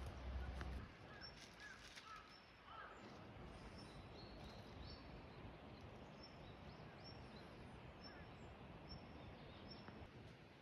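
Faint outdoor ambience with small birds chirping, short high notes repeating about twice a second.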